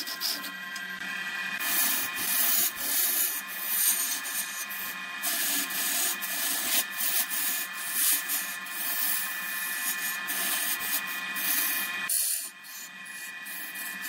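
A lathe turning tool scraping and cutting into a spinning jackfruit-wood blank, a continuous rasping hiss over the steady whine of the lathe, with a brief lull about twelve seconds in.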